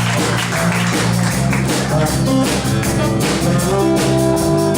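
Live rock band playing: electric guitar with bent notes over a steady bass line and drums.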